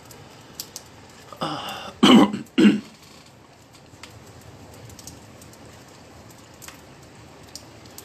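A man clearing his throat: a short rasp about a second and a half in, then two loud coughs just after two seconds.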